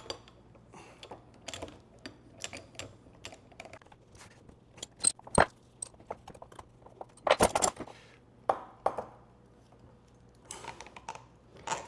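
Irregular metal clicks and clinks from a gear puller working the planet carrier off a GMAC hub motor's axle, and from the puller being taken off the motor. The loudest clatter comes about seven seconds in.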